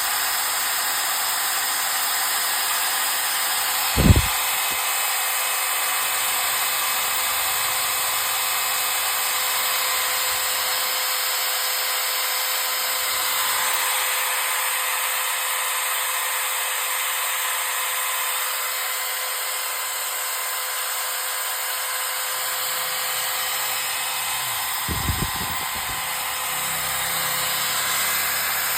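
Makita 800 W hammer drill running steadily at constant speed, a high whine with motor hiss. There are two brief thumps, about four seconds in and near the end.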